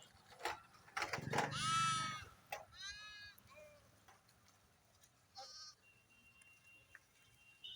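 Sheep bleating: a long, loud bleat about a second in, a shorter bleat just after it, and a brief higher call a couple of seconds later.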